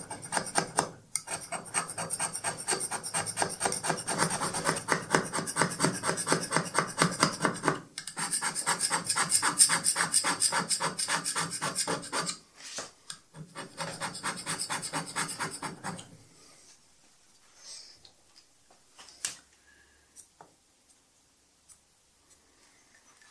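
Hand scraper cutting a metal machine-tool way in rapid, even strokes: step scraping the dovetail of a Schaublin 102 lathe compound slide to take down a worn surface. The strokes stop with short breaks in between and end about two-thirds of the way in, leaving a few faint clicks.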